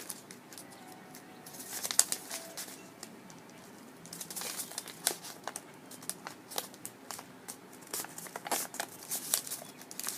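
Paper rustling and crinkling as an origami model is folded and creased by hand, with a run of small crackles and sharp taps. There is a quieter stretch about three seconds in.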